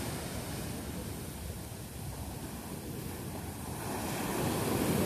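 Heavy ocean surf breaking and washing up the sand, a steady rushing that swells louder about four seconds in as a wave comes in.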